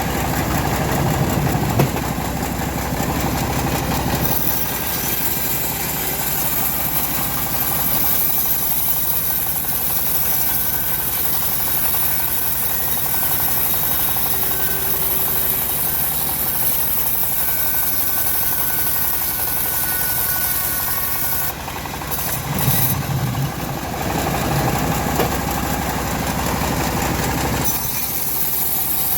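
Homemade bandsaw sawmill running with a steady mechanical drone. The sound changes character about four seconds in and again a little after twenty seconds.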